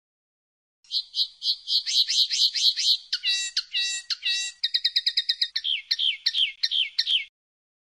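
Common linnet song: a varied run of quick twittering phrases, starting about a second in with a rapid string of notes, then three slower drawn-out falling notes, a fast trill, and a string of falling notes that stops near the end.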